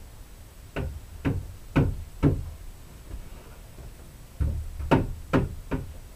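Sharp knocks on wood, two runs of four at about two a second with a pause between, as a wooden board is struck against a plank wall.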